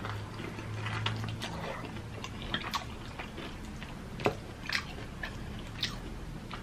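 Close-up biting and chewing of a crispy fried chicken thigh (Jollibee Chickenjoy), the breaded skin crunching in scattered short crackles, the sharpest a little past four seconds in.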